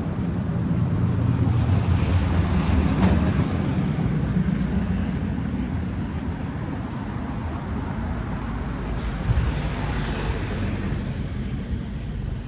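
Street traffic: a vehicle's low engine rumble swells and passes over the first few seconds, with a short sharp tick about three seconds in. Near the end another vehicle's tyre hiss rises and fades.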